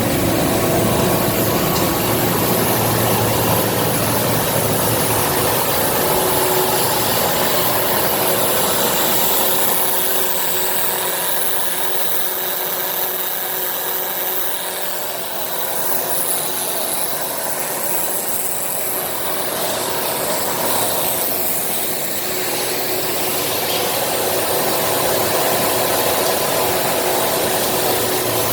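Foam-scrap silo and recycling machinery running steadily. It is a constant mechanical hum with a few fixed tones over a broad hiss, and the low rumble thins out for several seconds in the middle.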